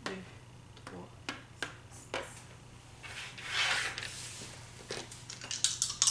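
Game pieces clicking on a cardboard board game: a few light taps, then a longer rubbing, sliding sound, and a quick run of small clicks near the end as dice start to rattle.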